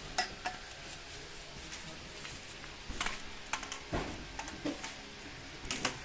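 Stainless steel vacuum cleaner extension pipes being fitted together and handled: scattered light metallic clinks and knocks, with the vacuum switched off.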